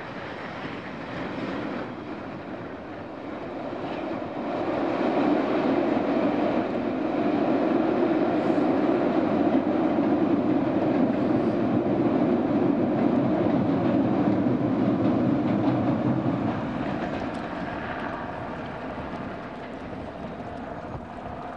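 A passing train hauled by the Bulleid Battle of Britain class steam locomotive 34067 Tangmere, with a Class 47 diesel on the rear. Its steady rumble swells about four seconds in, holds loud for some ten seconds, then fades away.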